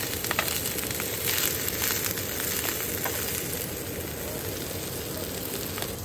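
Sausages sizzling in a frying pan on a gas camp stove, a steady frying hiss with a couple of light clicks of a metal spatula against the pan.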